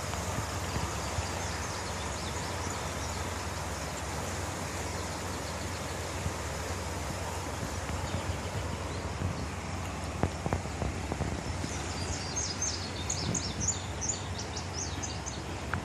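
Steady outdoor background noise with a low hum underneath. A few sharp knocks come a little past the middle, and over the last few seconds a bird sings a rapid run of short, high chirps.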